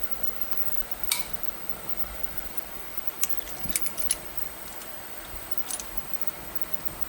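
Small metal hand tools or parts being handled and set down, giving a few sharp metallic clinks: a loud one with a short ring about a second in, a quick cluster of clinks a couple of seconds later and another pair near the end, over a steady low hiss.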